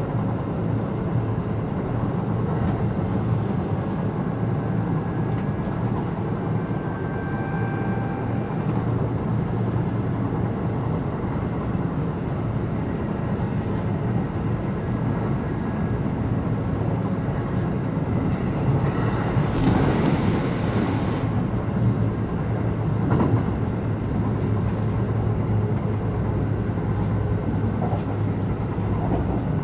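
Running noise of a Kintetsu 12200 series limited express car heard from inside the cabin at speed: a steady rumble of wheels on rail. A louder rush swells and fades about two-thirds of the way through.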